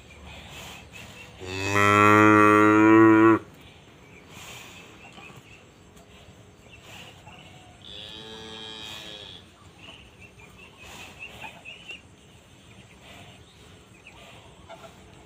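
Cattle mooing: one loud moo lasting about two seconds shortly after the start, then a second, fainter moo about eight seconds in.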